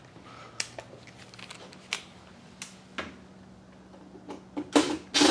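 Scattered light clicks and knocks of hand tools and metal parts being handled, a few at a time. Near the end come several louder, longer scraping or rustling sounds.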